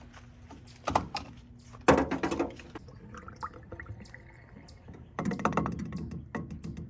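Clicks and a clatter as the pickup's fuel door and filler are opened, then a can of Seafoam fuel treatment being poured into the gas tank's filler neck from about five seconds in.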